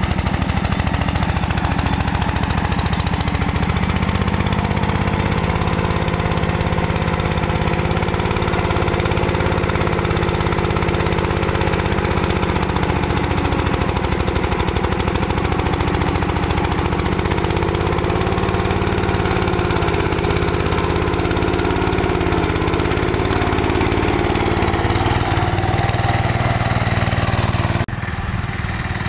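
Riding mower engine running hard, its pitch rising and falling as it works. Near the end the sound suddenly drops and turns duller.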